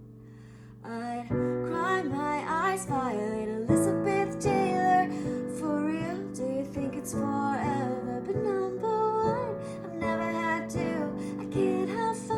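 Song with a woman singing in long, wavering lines over guitar. The music drops quieter for about the first second, then comes back in.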